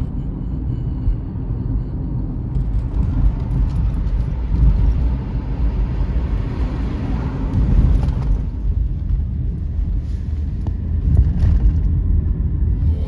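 Train passing with a steady low rumble; a hiss swells in the middle and fades after about eight seconds.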